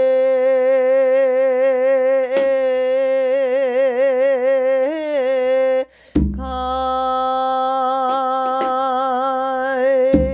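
A woman singing pyeongsijo, a Korean classical sung poem, without accompaniment: a very long held note that sways in a wide, slow vibrato a few seconds in, a short breath about six seconds in, then another long steady held note.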